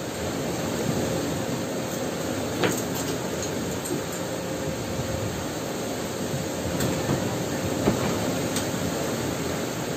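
A steady mechanical rumble with a faint steady hum, broken by a few light metallic clicks as steel rudder and steering fittings are handled.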